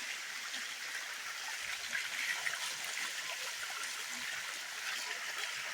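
Water of Bua Tong waterfall running steadily, an even rushing hiss with small trickles.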